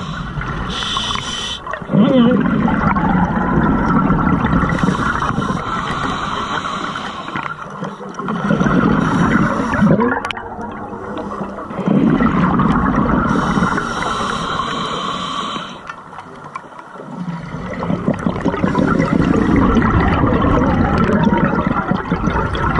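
Scuba diver breathing through a regulator underwater: a hiss of air on each inhale, then a gurgling rush of exhaled bubbles, repeating every five seconds or so.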